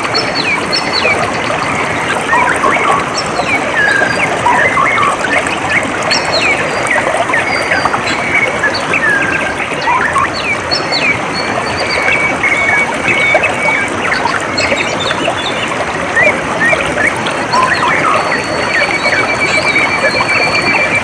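Water trickling steadily, with many birds chirping over it in short calls and a few rapid trills, one of them near the end.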